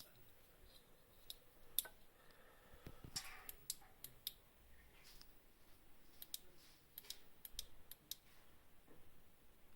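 Faint, irregular sharp clicks, about fifteen spread unevenly, with a brief light rustle of handling about three seconds in.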